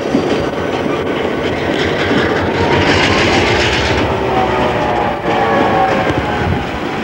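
CN GP9 diesel switcher locomotive rolling slowly past, its EMD 16-567 two-stroke diesel engine running, with its wheels on the rails.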